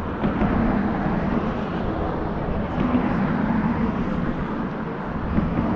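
An engine running steadily, a low hum over wide rushing noise.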